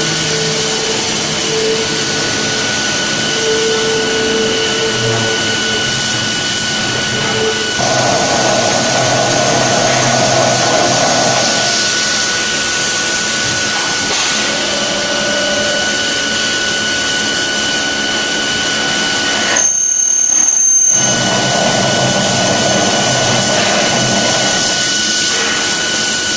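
CNC gantry plate-drilling machine running, its spindle drilling steel plate with a steady loud machine whine and hiss. Tones come and go as the machine works, and about three-quarters of the way through a short break carries a high whistle.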